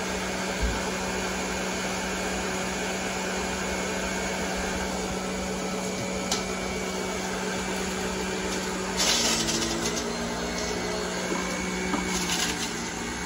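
Centrifugal juicer motor running steadily with a high spinning whir. About nine seconds in, and again near the end, the note drops and a rattling grind joins as produce is pushed down the feed chute and loads the motor.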